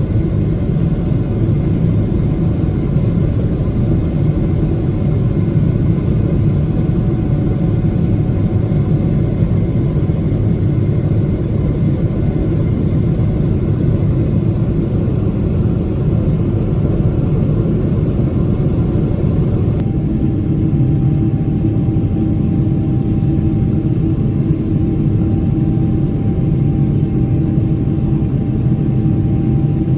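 Boeing 777-300ER's GE90-115B jet engine and airflow heard from inside the cabin during climb-out: a loud, steady low roar with a faint hum. About two-thirds of the way through, a hum in the engine noise grows stronger.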